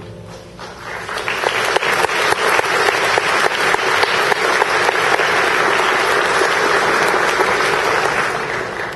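Audience applauding at the end of a choir and violin piece, swelling over the first second or so and dying away near the end.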